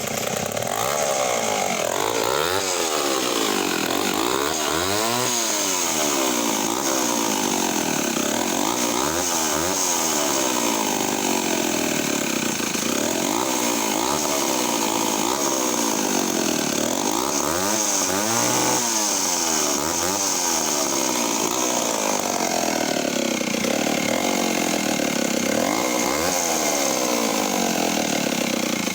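Vintage Canadien PM270 two-stroke chainsaw running, its engine speed rising and falling again and again as the throttle is opened and eased off.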